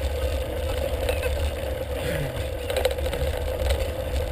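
Wind rumbling on the camera's microphone, with the rattle and clatter of a bicycle riding over a rough, stony dirt track.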